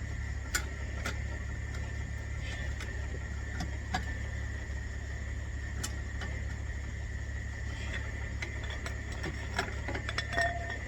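Irregular metallic clicks and clinks from the car's factory jack and its crank being worked by hand, coming singly at first and bunching together near the end, over a steady hum.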